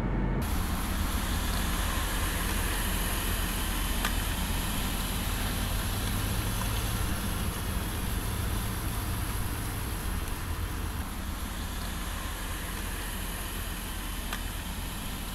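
Heavy truck driving slowly: a steady low rumble with a hiss of road and wind noise, easing slightly toward the end.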